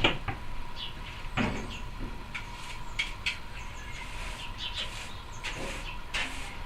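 Scattered knocks and clicks of the hinge jig and workpiece being handled after drilling, with a sharper knock at the start and another about a second and a half in, over a faint steady hum.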